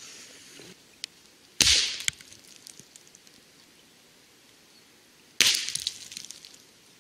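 Two .22 LR subsonic rifle shots from a Ruger 10/22 semi-automatic, about four seconds apart, each hitting and shattering a small target close by, followed by a scatter of small clicks as the pieces land. A soft rustle of footsteps in leaf litter comes just before.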